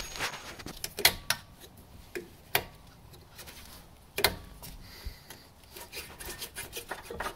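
Scraping and rubbing with irregular sharp knocks, three louder ones about one, two and a half and four seconds in, as the drilled-out old rear axle bushing and its inner metal collar are worked loose inside the Chevy Aveo's rusty trailing arm eye.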